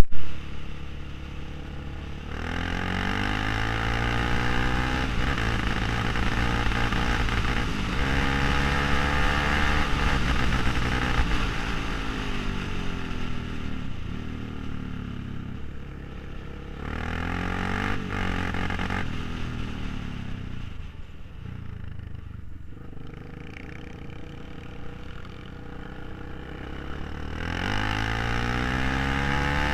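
Suzuki LTZ 400 quad's single-cylinder four-stroke engine under way, its pitch climbing and falling several times as it is throttled up and eased off. There is a sharp knock right at the start.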